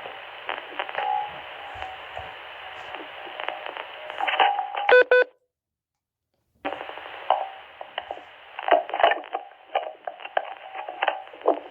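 Radio transmission static crackling and hissing through a narrow, telephone-like band, with faint humming tones. About five seconds in comes a quick run of beeps, then the signal cuts out completely for over a second before the static and crackles return.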